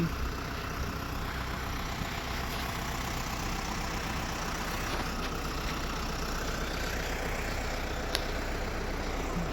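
Steady low engine rumble of running machinery or traffic, with one faint click about eight seconds in.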